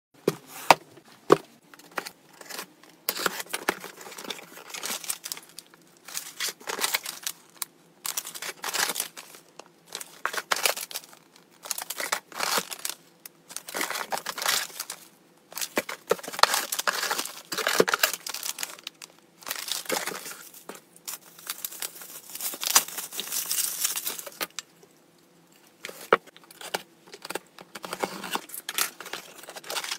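Parcel unboxing: cardboard box flaps handled, plastic and bubble-wrap packaging crinkling, and packing tape slit with a box cutter. It comes in irregular bursts of rustling and sharp clicks, with a longer stretch of crinkling about two-thirds through and a brief pause after it.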